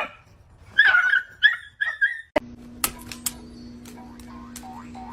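A small pet gives four short, high-pitched whimpering cries in quick succession. About halfway through they give way to a steady low hum with scattered sharp clicks.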